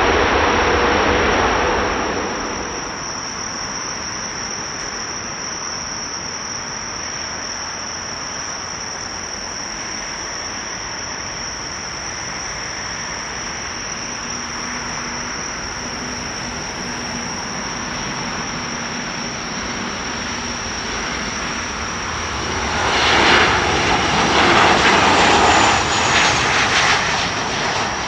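Jet airliner engines at a runway. The noise of a landing airliner fades over the first two seconds and gives way to steady distant engine noise. Loud, uneven jet noise swells about 23 seconds in and eases near the end.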